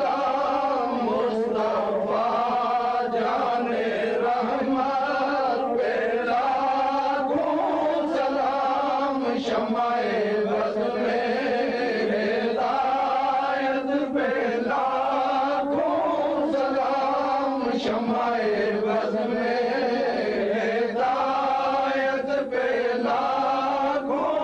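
Islamic devotional chanting, voices running on without a break, the melody rising and falling phrase by phrase.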